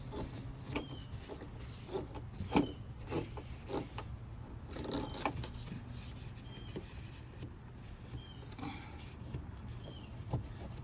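Scattered light clicks and knocks of van door parts being handled during a lock wiring repair, over a steady low hum.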